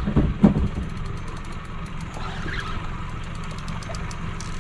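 Steady low rumble of the boat's outboard motor idling while the boat holds over a reef, with fast light ticking from a spinning reel as a hooked fish is wound in. There are two dull knocks about half a second in.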